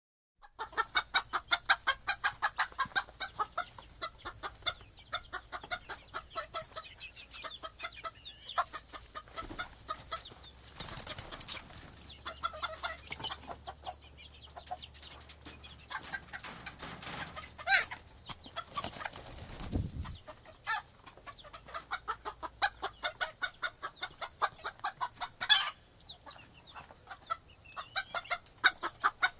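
Chicken coop ambience: many hens clucking in quick, overlapping runs, with a couple of louder sharp squawks, one about two-thirds of the way in and one near the end.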